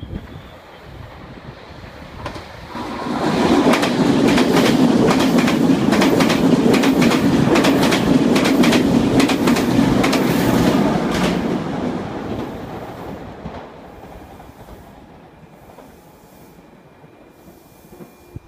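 Meitetsu electric train passing through the station at speed without stopping. The rumble builds, then there is loud, rapid clatter of wheels over rail joints for about eight seconds, and the sound fades away.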